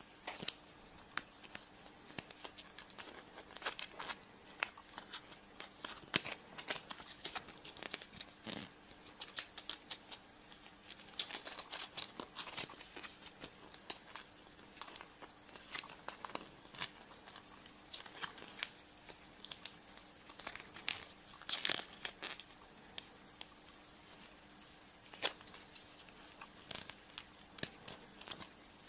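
Wrappers of chocolate surprise eggs being crinkled and torn open by hand: irregular sharp crackles and snaps, coming in clusters with short pauses.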